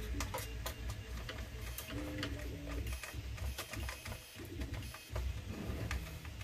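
Small irregular clicks and rattles of a hand screwdriver driving a screw into a plastic Nerf blaster shell, with plastic parts being handled.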